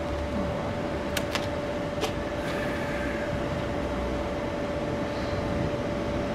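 Steady machine hum holding one constant tone over a low rumble, with three short clicks between about one and two seconds in.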